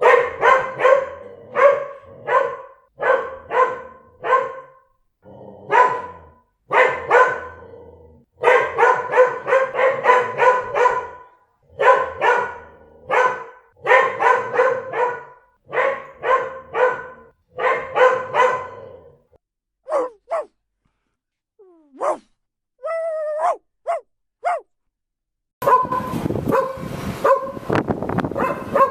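Mixed-breed dogs barking in quick repeated runs, then a few short high-pitched whines and yelps with gaps between them, and near the end a denser, rougher stretch of barking.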